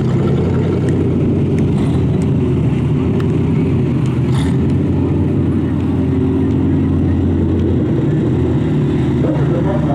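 Demolition derby car engines idling, loud and steady.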